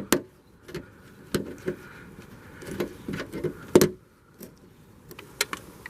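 A hooked plastic pry tool working a push-pin rivet out of a car's trunk-lid liner. Irregular plastic clicks and knocks, the loudest about four seconds in.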